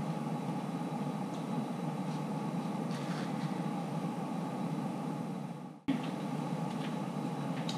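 Steady background noise of room ambience with a faint hum in it. It fades and cuts out abruptly for a moment near the end, then resumes unchanged.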